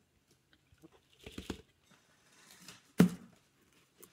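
Handling of a plastic fishbowl holding slime: soft rustling and a few light clicks, then a single sharp knock about three seconds in as the bowl is set down on the table.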